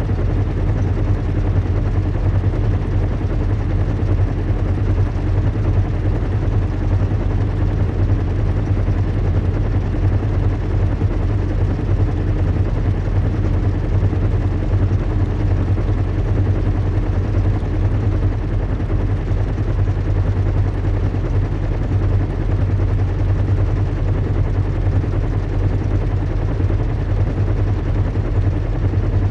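Recreated zeppelin-in-flight ambience: a steady low rumble and hum of airship engines, with a rapid flutter and a hiss of rushing air over it.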